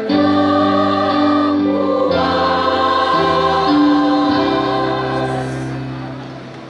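Choir singing the closing phrase of a regional hymn in sustained chords, ending on a long held final chord that fades away near the end.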